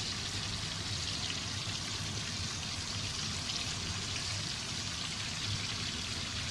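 Egg- and Nimco-coated chicken pieces sizzling in hot oil, a steady crackling hiss.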